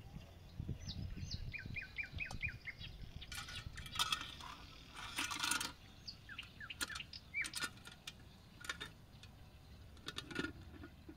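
Small birds chirping in runs of short, quick, falling notes, with metallic clinks and clattering from a hanging steel pan, its chains and its lid being handled.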